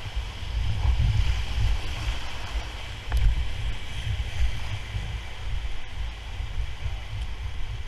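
Rushing river rapids around an inflatable paddle raft, a steady wash of whitewater with an uneven low rumble that swells and fades.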